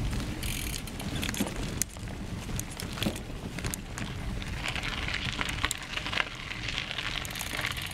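Mountain bike rolling fast along a dirt and grass singletrack: tyres crunching on the trail and the bike rattling with frequent sharp clicks over a steady low rumble.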